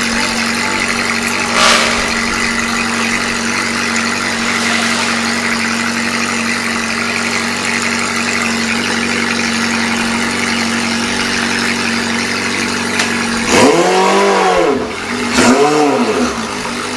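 Motorcycle engine idling steadily, then blipped three times near the end, each rev rising and falling in pitch.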